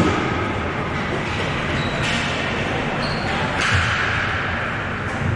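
Echoing din of an indoor ball hockey game: ball and sticks on the floor, shuffling feet and indistinct voices, with a hissing rush a little past halfway.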